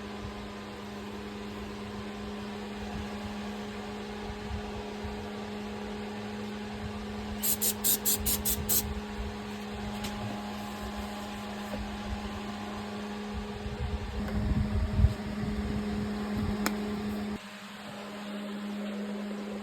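A steady machine hum, with a quick run of about six sharp ticks about eight seconds in and some low rumbling a little past the middle.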